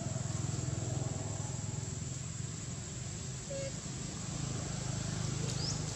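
Low, steady engine-like rumble of a motor vehicle running, with a few faint short chirps over it.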